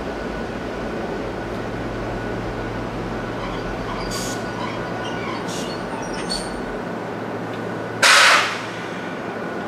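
Ichibata Electric Railway 2100-series electric train standing at a platform, its on-board equipment giving a steady low hum with a thin high tone; the low hum stops about seven seconds in. About a second later comes one loud, short hiss of released compressed air that dies away within half a second.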